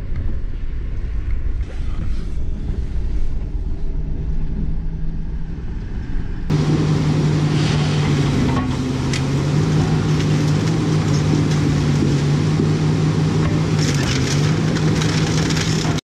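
A vehicle engine running steadily. About six and a half seconds in, the sound changes abruptly to a louder, steady engine drone with a low hum.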